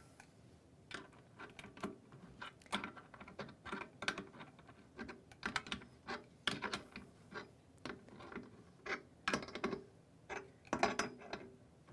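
Wing nut being turned by hand on a pipe clamp's bolt, tightening the fixture mount to the pipe: a run of small, irregular metal clicks and ticks, a few a second.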